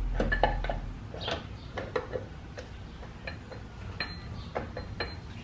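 Scattered metallic clinks and light taps as the stator cover is handled and worked against the Yamaha Warrior 350's engine case, several in quick succession in the first couple of seconds and sparser after.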